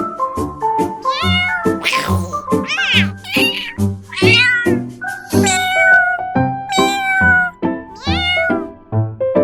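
Domestic cat meowing repeatedly, several calls with one long drawn-out meow in the middle, over background music with a steady keyboard beat.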